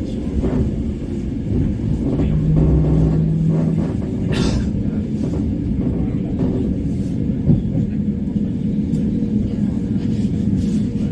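Steady low rumble of a Mat '64 electric train, with a brief hum about two seconds in and a short hiss about four seconds in.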